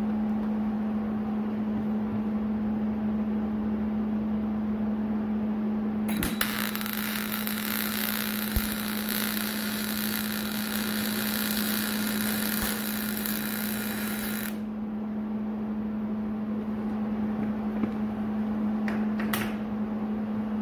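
Aluminum MIG welding with a Miller Spoolmate 100 spool gun on a Millermatic 211, with the shielding gas now fully turned on: the arc strikes about six seconds in and runs as a steady hiss for about eight seconds before stopping. A steady machine hum at one pitch runs underneath throughout.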